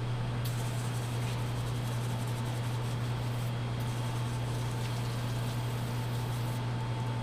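Steady low machine hum, even in level, with a few faint clicks of handling.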